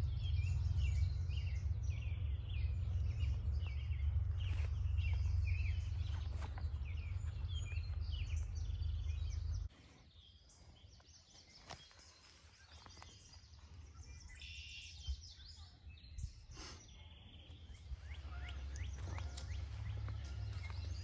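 Birds chirping and singing over and over, over a heavy low rumble of wind on the microphone. The rumble cuts off suddenly about ten seconds in, leaving the birds over a quieter background, and comes back near the end.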